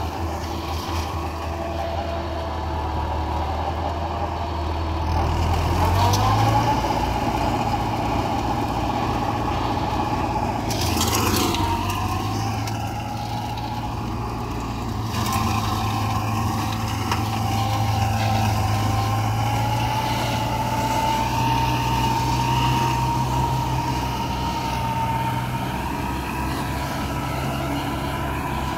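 Universal 640V tractor's diesel engine running steadily while driving a flail mower, with a thin whine that drifts slowly in pitch. The engine note steps up about six seconds in, and there is a brief rattling flurry around eleven seconds.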